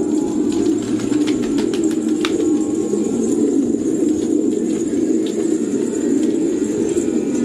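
A flock of fancy pigeons cooing together in a steady, continuous chorus, with a few short clicks and wing flutters about one to two seconds in.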